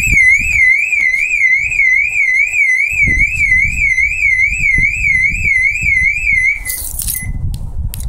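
BMW X5 (E53) factory alarm siren, a junkyard replacement for one that had gone faint, sounding loud: a high warbling tone that rises and falls about three times a second. It cuts off about six and a half seconds in, followed by a short beep.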